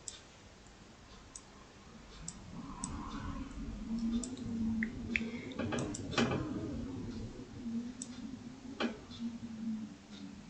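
Computer mouse clicking now and then, a handful of sharp single clicks, with a faint low steady hum underneath from about two seconds in.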